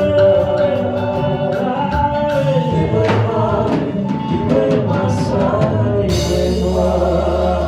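Gospel worship music: voices singing over a band with a drum kit keeping the beat. About six seconds in, a bright crash and a held low note come in.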